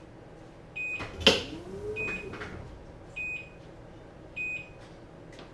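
A short, high electronic beep repeating about every second and a bit, with a single sharp knock about a second in.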